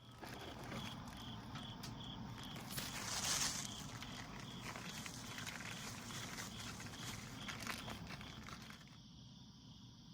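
Footsteps crunching along a trail, with an insect chirping steadily a little over twice a second.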